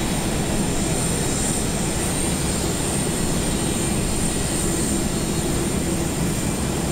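Jet-turbine noise at an airport apron: a steady high whine over a low rumble, holding even with no change.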